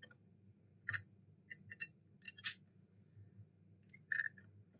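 Metal pick scraping and ticking against the cracked rear glass of an iPhone X, chipping glass away around the camera: a handful of short, sharp scrapes, bunched in the middle and once more near the end.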